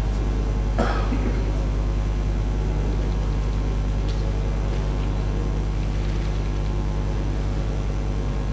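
Steady low hum with an even background hiss from an open microphone feed, with a brief faint sound about a second in.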